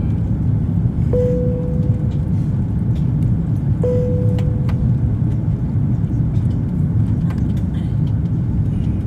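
Jet airliner cabin noise on the landing approach: a steady low rumble of engines and airflow. A single-tone cabin chime rings twice, about a second in and again nearly three seconds later, each fading out.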